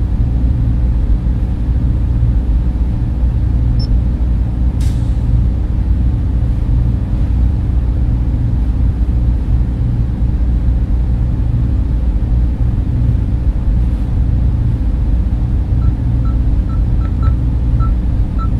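Steady low rumbling drone of a sci-fi spaceship-interior ambience, like machinery and ventilation running, without pause. A faint tick comes about five seconds in, and a few faint short blips come near the end.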